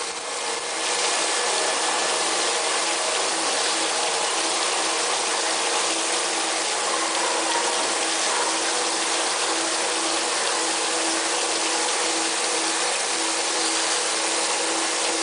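CNC induction hardening machine running on a shaft: a steady rushing hiss with a constant low hum underneath.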